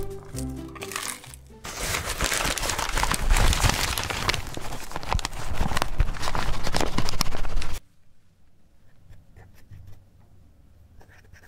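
Music ends in the first second or two, then a paper bag of bread flour crinkles and rustles loudly for about six seconds as flour is tipped into a glass bowl, stopping abruptly. Faint scratching of a wooden stick poking into the flour follows.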